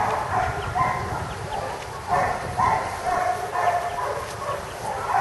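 A dog yipping and barking over and over, short high calls coming about twice a second.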